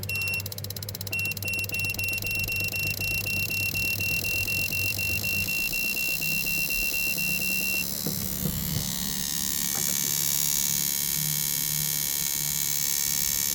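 Spark plug tester machine running a test. It beeps in a rapid series, about four beeps a second, until about two-thirds through, over a fast ticking as the plug fires. It then settles into a steady electrical hum. The plug sparks weakly but acceptably.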